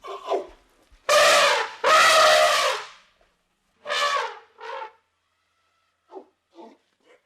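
Elephant trumpeting: two long, loud, brassy calls back to back about a second in, two shorter calls around four seconds, and a few faint short ones near the end.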